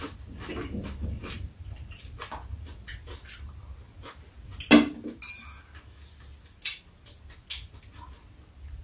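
Chopsticks and spoons clicking against ceramic bowls while two people eat noodles, with mouth sounds of eating. Scattered light clicks, with one louder clatter near the middle.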